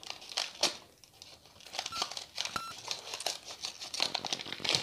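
Plastic-foil snack packet crinkling in the hands as it is cut open with scissors: a run of irregular crackles and snips.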